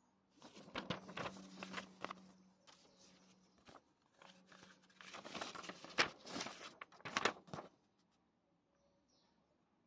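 Paper rustling and crackling as folded printed leaflets are unfolded and handled, in two spells of a couple of seconds each, with the sharpest crackles about six and seven seconds in.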